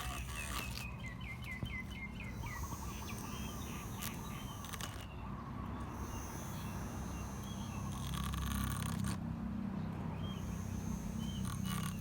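Birds chirping, with a quick trill in the first few seconds and a few scattered chirps later, over a steady low rumble.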